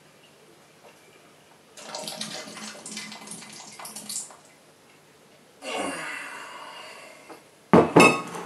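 Blackberry wine running through a siphon tube into a glass demijohn, in two splashing stretches of about two seconds each, the second fading away. A short, loud noise follows near the end.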